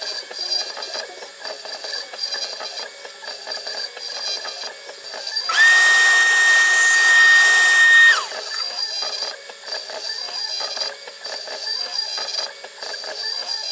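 CNC-converted Precision Matthews PM-25MV milling machine running a machining program, with an uneven, rhythmic mechanical chatter. A loud steady whine comes in about five and a half seconds in, holds for under three seconds, then slides down and stops.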